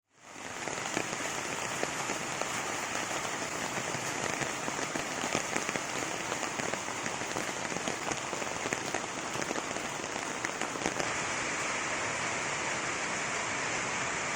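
Steady rain falling, with many small sharp drop ticks over an even hiss; about eleven seconds in it turns into a smoother, more even rush.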